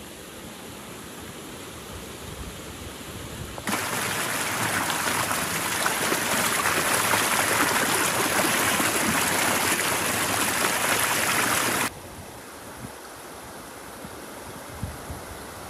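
Steady rushing, water-like noise. It becomes much louder about four seconds in and stays that way until it cuts off abruptly about twelve seconds in, with a quieter even hiss before and after.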